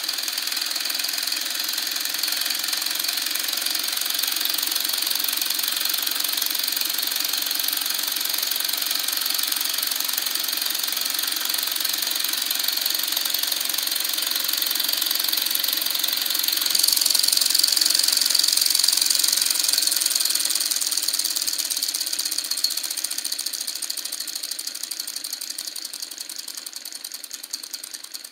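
Scratch-built two-cylinder solenoid engine running fast, its 12-volt long-stroke solenoid plungers, push rods and roller rockers making a rapid, steady clatter. It grows louder about two-thirds of the way through, then fades toward the end.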